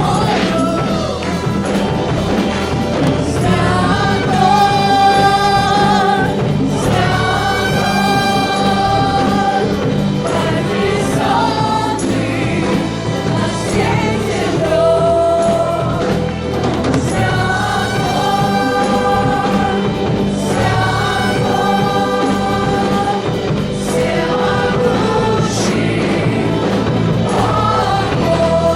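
Live church praise-and-worship music: a group of voices singing long held notes over a band with a steady low bass.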